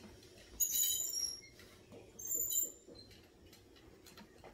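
Pink plastic toy doll stroller being pushed along on carpet, its wheels giving two short high-pitched squeaks, about a second in and again just after two seconds.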